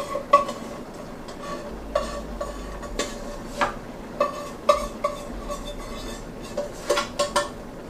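A stainless steel pot clinking as thick macaroni-and-cheese mixture is tipped out of it into a baking dish: irregular short metallic clinks, each ringing briefly, over a faint steady hiss.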